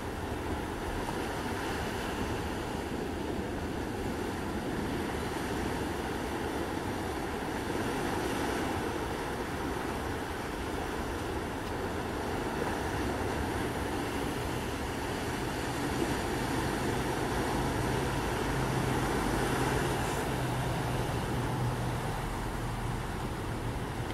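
Steady wash of ocean surf, with a low steady hum joining about two-thirds of the way in.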